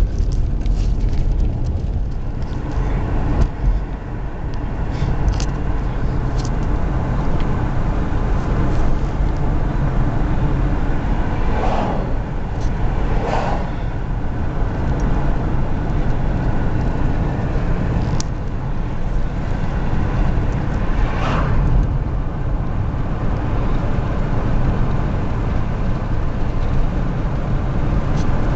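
Steady low rumble of a car driving along a road, engine and tyre noise together, with a few brief louder swishes midway and again later on.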